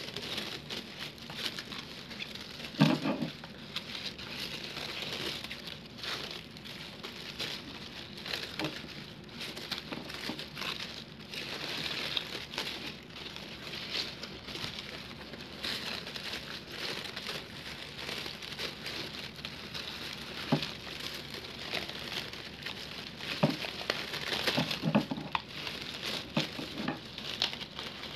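Kraft honeycomb wrapping paper crinkling and rustling as hands pull it open and unwind it. A few soft thumps come from the handling, the loudest about three seconds in.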